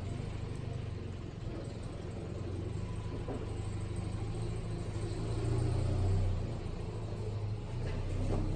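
Datsun 620 ute's four-cylinder engine running at low revs as the ute reverses away, a steady low rumble that swells briefly about five to six seconds in.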